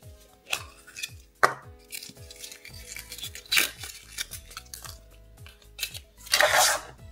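Hard plastic surprise capsule handled and pulled open: a run of sharp plastic clicks and knocks, then a loud crinkling rustle near the end as the paper wrapped around the figure inside is pulled out. Faint background music with a steady beat runs underneath.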